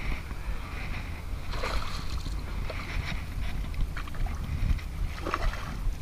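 Wind buffeting an action-camera microphone, a steady low rumble, with a few short louder noises about a second and a half in and again about five seconds in.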